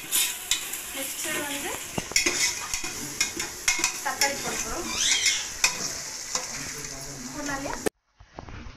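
Sliced onions and whole spices sizzling as they fry in oil in an aluminium pressure cooker, with a steel ladle stirring and scraping against the pot in frequent clicks. The sound cuts off abruptly near the end.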